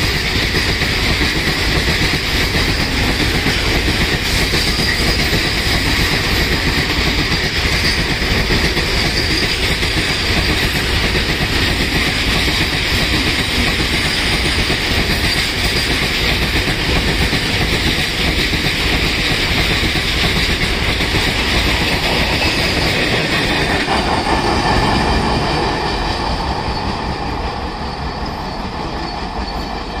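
A long freight train of open-top wagons rolling past: a steady rumble and clatter of wheels over the rails with a high metallic wheel squeal over it. It begins to fade in the last few seconds as the train draws away.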